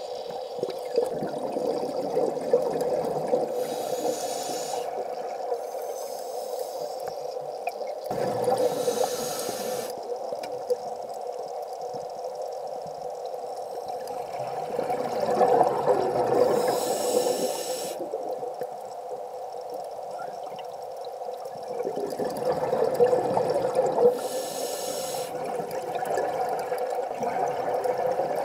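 Scuba diver breathing through a regulator underwater: a hiss of inhalation about four times, several seconds apart, alternating with swells of exhaled bubbles, over a steady hum.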